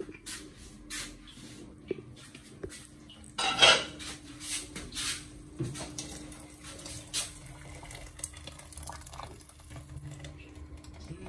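Clinks and clatter of a stainless-steel cooking pot and its lid, loudest about three and a half seconds in as the lid comes off. Then a blended tomato and garden-egg purée is poured from a plastic blender jug into the boiling soup.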